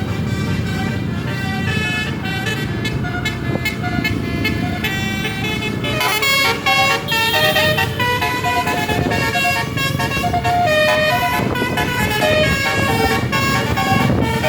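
Bus telolet horn, a Basuri-type multi-tone electric horn, playing a quick melody of short stepped notes. The notes get louder and busier about six seconds in, over bus engine and traffic rumble.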